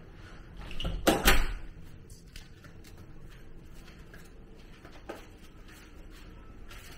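Two loud, close knocks about a second in, like something wooden shutting or being bumped, then a faint click a few seconds later, over a steady low room hum.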